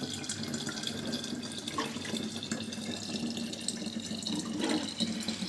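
Water running steadily from a tap into a container being filled.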